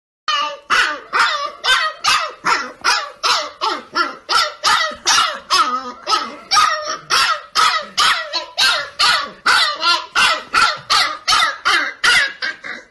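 Husky puppy barking over and over in a steady run of short yaps, about two and a half a second.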